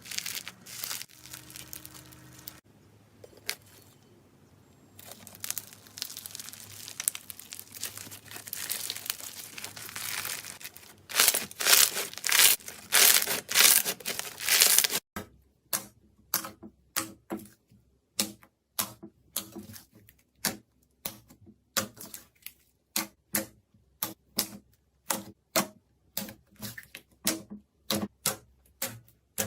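Slime being squeezed and worked by hand: dense crackling and squishing that grows loud, then after an abrupt change about halfway in, a steady run of short sharp pops or clicks, roughly two a second.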